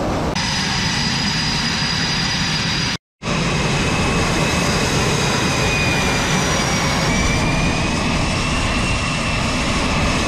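F/A-18 Super Hornet jet engines running: a steady loud rush with a high turbine whine that wavers slightly in pitch, broken by a brief total dropout about three seconds in.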